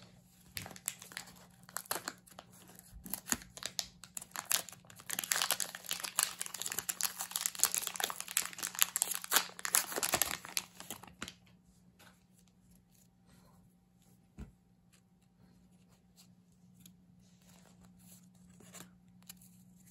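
Plastic wrapper of a Panini Score football 40-card value pack crinkling and tearing as it is ripped open, loudest in the middle. After that come only faint clicks and rustles as the stack of cards is handled.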